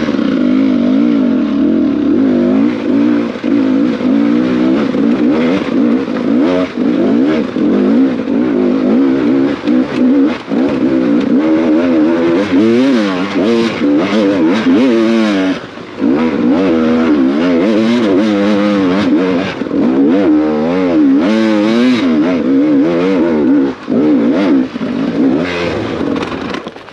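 Enduro dirt bike engine revving hard and constantly up and down under the rider's throttle on a rough forest trail. It drops off briefly about sixteen seconds in and again about twenty-four seconds in.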